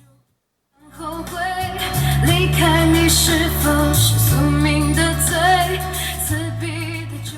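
A pop song with a woman singing over long, steady bass notes, starting about a second in after a brief silence.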